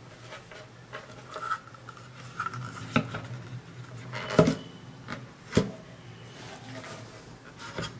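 Handling noise as wires are pushed into an MDF speaker enclosure and a woofer is set into its cutout: rubbing and rustling with several sharp knocks. The loudest knock comes a little over four seconds in, as the woofer drops into place, and another follows about a second later.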